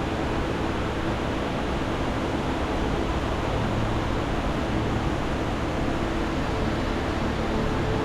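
Steady rush of a mountain stream running high over rocks.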